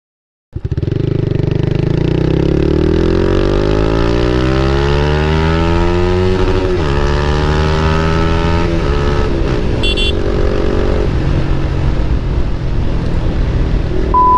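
Motorcycle with an Akrapovic aftermarket exhaust under hard acceleration, its engine note climbing for about six seconds, dropping sharply near seven seconds as at a gear change, then running steadily at speed with another drop near eleven seconds. A brief high-pitched chirp sounds about ten seconds in.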